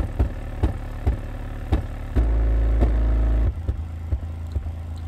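A PowerBass 3XL-810D 8-inch subwoofer playing a bass-heavy song in free air, with no enclosure: deep bass under a regular beat of sharp clicks. A louder, held low bass note comes in about two seconds in and drops away about a second later.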